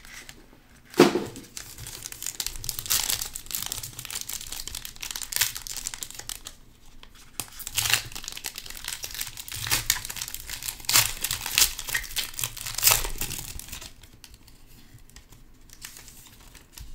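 Plastic wrapping crinkling and tearing in irregular surges as a trading-card box and packs are unwrapped, with a sharp knock about a second in.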